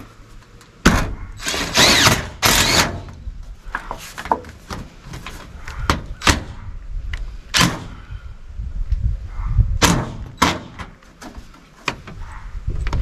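Cordless drill driving screws through metal roof flashing in a couple of short runs, about two seconds in and again near ten seconds, among sharp knocks and thunks of the sheet metal being handled.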